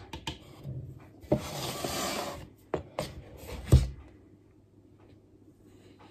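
Plastic measuring scoop scraping and knocking against a protein-powder canister as level scoops of powder are taken: a few light clicks, a rasping scrape of about a second, then a sharper knock, after which it goes quiet.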